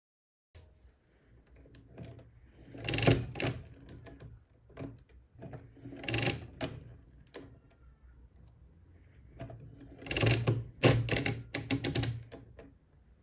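Odhner Model 8 pinwheel calculator with its hand crank turned backward for subtraction. Each turn gives a burst of mechanical clicking and clatter, and there are lighter clicks between the turns. The last turns take the result below zero, so the result register rolls over to 9999999999997, standing for -3.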